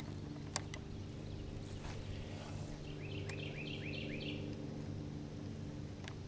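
A steady low motor hum from the jon boat. Two sharp clicks come about half a second in, and a bird calls a quick run of about six repeated notes around the middle.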